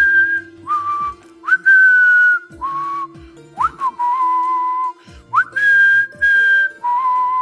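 A whistled tune: about eight short breathy notes, each swooping up and then held, alternating between a higher and a lower pitch, over a soft held note of musical accompaniment.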